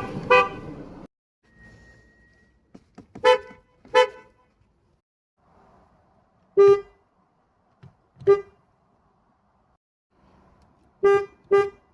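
Car horn giving short toots at one steady pitch, mostly in quick pairs about half a second apart, with pauses of a few seconds between them.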